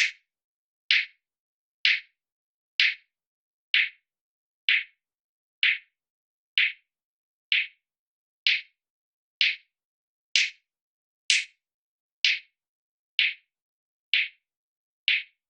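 Soloed electronic clap sample repeating in a steady loop, about one sharp, bright hit per second, played through a spectral harshness processor that takes the edge off its upper mids.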